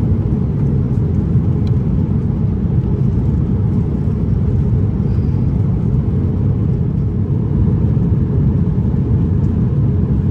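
Steady low rumble of an Airbus A350 passenger cabin in flight, from its Rolls-Royce Trent XWB jet engines and the air rushing past the fuselage, with the aircraft climbing through about 19,000 ft.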